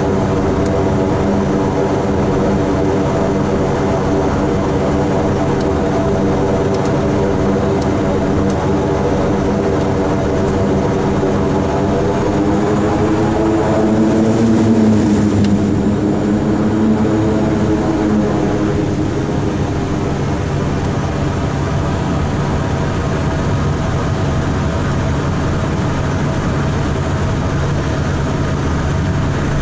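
Twin Pratt & Whitney PT6A turboprop engines of a Beechcraft King Air 90 running while it taxis, heard inside the cockpit as a steady droning hum made of several tones. About halfway through the pitch and level rise briefly, then settle back to the steady drone.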